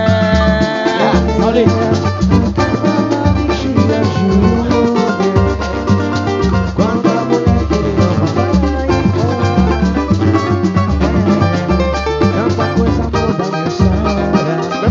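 Samba/pagode band playing an instrumental passage between sung lines: plucked strings over a steady beat of drums and percussion with a pulsing bass.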